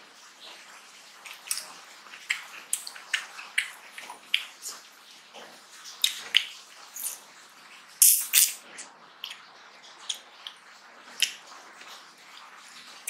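Close-miked wet mouth sounds of a man eating rice and mutton curry by hand: irregular chewing and lip-smacking clicks, a few a second, loudest in a pair about eight seconds in.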